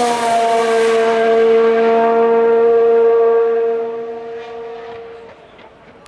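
Formula One car's engine holding a steady, high note, then fading away from about four seconds in.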